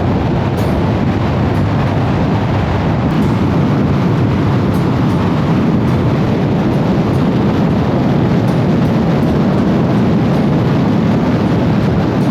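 Harley-Davidson motorcycle cruising at speed: a steady, loud engine and road rumble mixed with wind noise, unchanging throughout.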